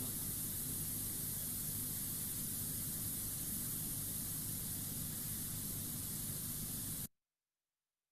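Steady hiss of a recording's background noise, strongest in the highs with a low hum underneath, in the answering pause of a listening-test track; it cuts off suddenly about seven seconds in to dead silence.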